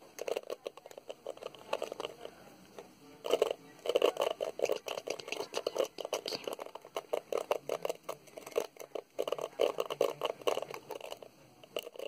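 Fingernails tapping and scratching across the plastic pins of a hairbrush: bursts of quick, dense clicks and scrapes, loudest about four seconds in.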